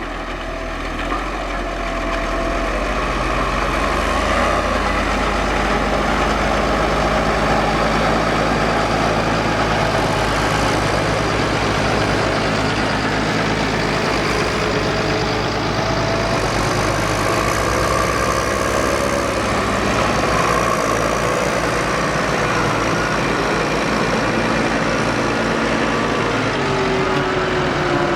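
Case IH Puma CVX tractor's diesel engine running steadily, getting a little louder over the first few seconds, with thin whines above it that waver in pitch.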